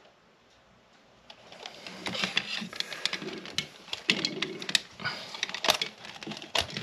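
Handling noise from a Klein Tools clamp meter and its test leads being picked up and moved. A near-silent start gives way, about a second and a half in, to a run of small clicks and rattles.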